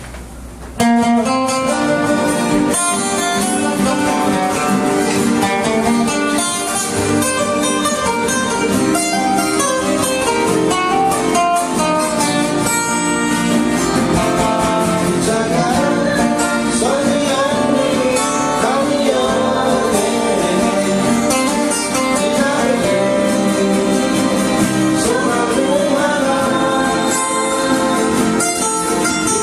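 Three acoustic guitars strummed together in a live folk-pop song that starts suddenly about a second in, with a man's voice singing a melody over them.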